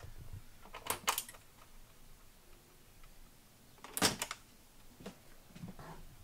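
Hard plastic cordless tools clicking and knocking as they are handled on a pegboard wall: two clicks about a second in and a sharper cluster about four seconds in.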